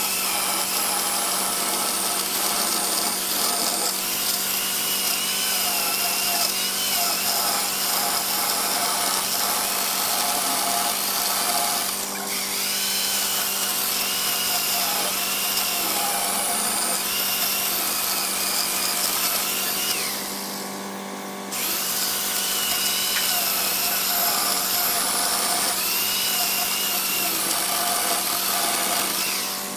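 Corded electric chainsaw running under load, its chain cutting through a thick wooden table-top slab with a steady motor hum. The cut eases off briefly about two-thirds of the way through, then picks up again.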